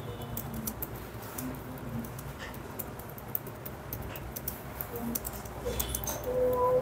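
Quiet classroom ambience with scattered light ticks and scratches, as of pens on paper, while students write. There is a low steady hum underneath, and a brief faint voice near the end.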